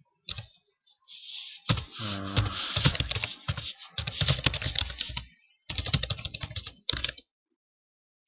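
Typing on a computer keyboard: dense runs of keystrokes with short pauses, stopping about seven seconds in.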